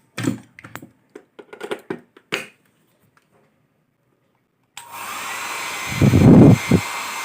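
Handling clicks, then a Philips hair dryer switched on about two-thirds of the way in, blowing with a steady rushing noise. Two loud low gusts of its airflow hit the microphone soon after.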